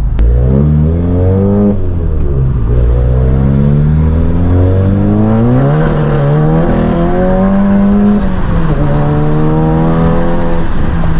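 Tuned Volkswagen Mk7 GTI's turbocharged 2.0-litre four-cylinder, fitted with an IS38 turbo and an aftermarket exhaust, accelerating hard through the gears of its six-speed manual, heard from inside the cabin. The engine pitch climbs and drops sharply at three upshifts, about two, six and eight and a half seconds in, then holds fairly steady at speed.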